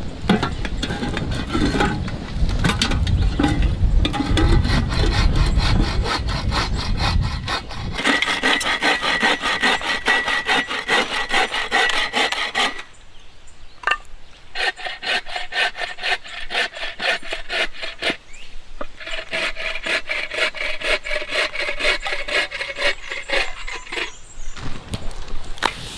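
Bow saw cutting through firewood logs in quick back-and-forth strokes, in several runs with short breaks between them.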